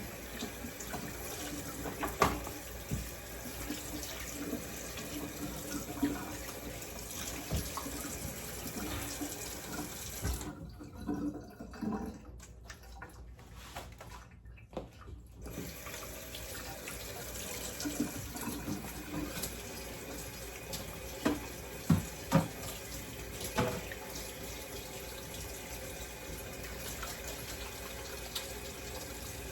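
Kitchen faucet running water into the sink, with a few sharp knocks and clatters of handling at the sink. The water stops for about five seconds a third of the way in, then runs again.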